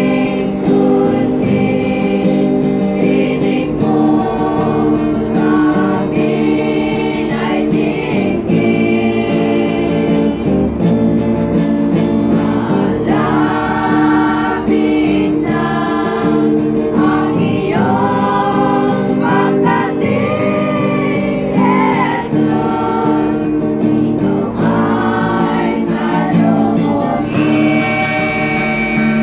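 Women's choir singing a gospel hymn in Ilocano, many voices together.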